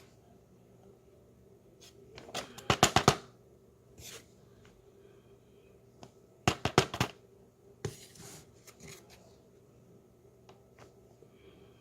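Packaging of tapioca starch being handled: two quick runs of crackly taps, each about five in under a second, the first about two seconds in and the second a little past six seconds, with fainter rustles and ticks between.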